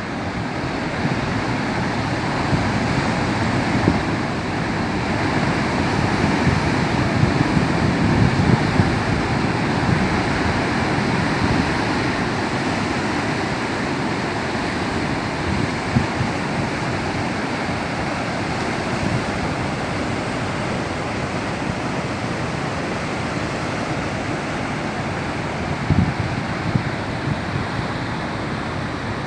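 Rough, choppy sea with surf breaking continuously along the shore: a steady rush of water that swells louder through roughly the first ten seconds and briefly again near the end.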